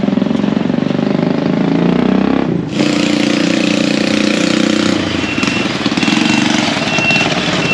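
Small motorcycle engines of motorbike cargo tricycles running close by in traffic, with a steady engine note that changes abruptly a little over two seconds in. A short high beep repeats several times in the second half.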